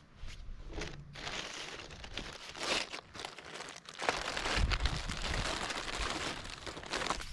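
Plastic packaging crinkling and rustling as it is handled, getting louder about four seconds in.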